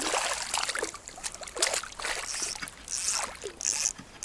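Water splashing and trickling in irregular short bursts, with a few stronger splashes in the second half.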